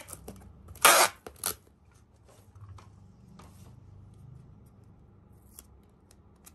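Packing tape pulled off a handheld tape dispenser across a cardboard box: a loud screech of tape peeling off the roll about a second in and a shorter one just after. Then only faint small handling clicks.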